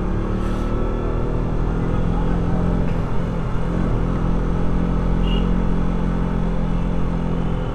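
Motor vehicle engine running at a steady speed while travelling on the road, a continuous even drone with road noise.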